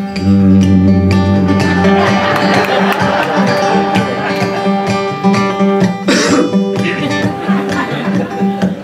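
Steel-string acoustic guitar strummed in a country rhythm, with a low bass note ringing over the first couple of seconds. A brief noisy burst comes about six seconds in.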